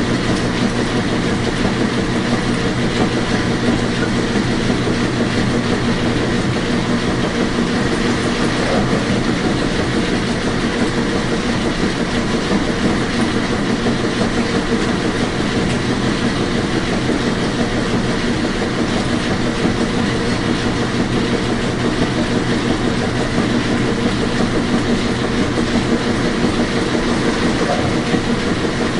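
Washing machine running steadily: an even, unbroken noise with a constant low hum under it.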